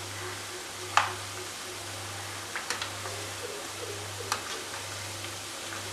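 Oil sizzling steadily as vermicelli vadas deep-fry in a pan, with a metal slotted spoon clicking against the pan a few times as they are turned, the sharpest click about a second in.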